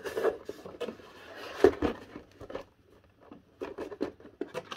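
Carded Hot Wheels blister packs being flipped through and shuffled inside a cardboard box: rustling of card and plastic with scattered clicks and taps, the loudest about one and a half seconds in and a quick run of clicks near the end.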